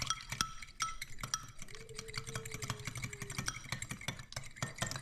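Eggs being beaten in a bowl: a utensil clinks rapidly and steadily against the bowl, with short ringing notes from the bowl, over a steady low hum.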